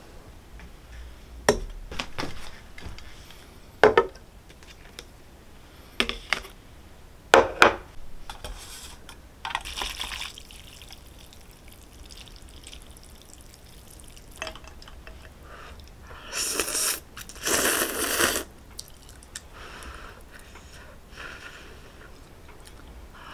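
Several sharp clinks and knocks of chopsticks and tableware against a small aluminium ramyeon pot and glass. Later come two short, loud bursts of ramyeon noodles being slurped.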